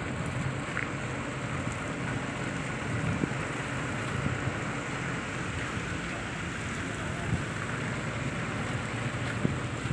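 Steady outdoor background noise with the low hum of vehicle engines and indistinct voices.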